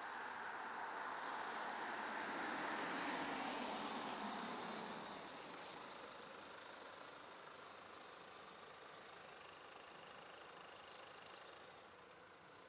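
A car approaching and slowing to a stop, its tyre and engine noise swelling and then fading away. A small bird chirps briefly twice.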